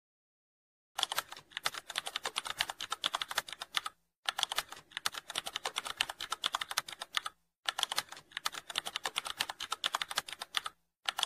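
Rapid computer-keyboard typing, fast keystrokes in three long runs of about three seconds each with brief pauses between them, and a short fourth run near the end. It begins about a second in.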